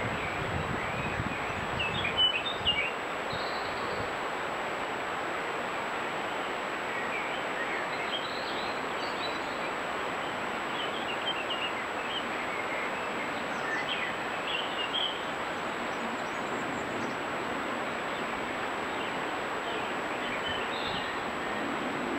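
Wild songbirds calling in short, scattered chirps, the loudest about two seconds in, over a steady hiss and a thin high steady whine from the trail camera's recording.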